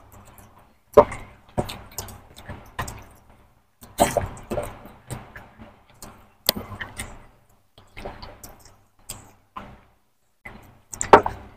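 Two people eating egg curry and rice by hand: wet chewing, lip smacks and fingers squishing rice, heard as an irregular string of short smacks and clicks.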